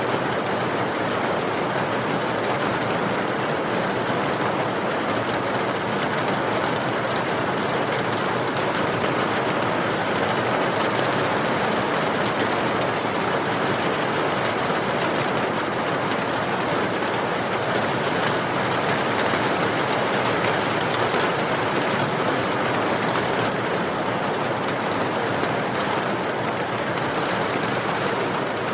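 Steady heavy rain mixed with a wood fire crackling in a fireplace, small sharp pops scattered through the even wash of rain.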